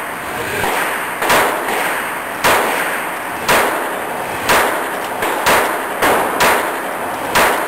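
Sig Sauer Mosquito .22 LR semi-automatic pistol fired in slow, steady succession: about seven sharp shots roughly a second apart, each with a short echo.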